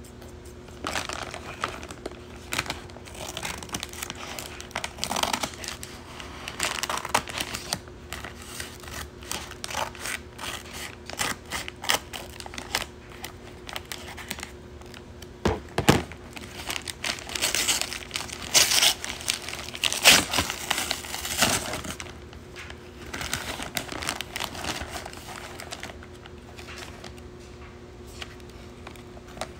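Brown kraft-paper mailer bag rustling and crinkling as it is cut open with scissors and pulled apart by hand, in irregular bursts that are loudest about two thirds of the way through.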